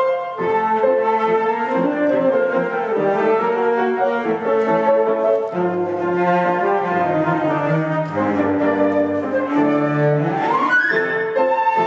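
A flute, cello and piano trio playing a classical chamber piece, with held melodic notes over piano accompaniment and a quick rising run about ten seconds in.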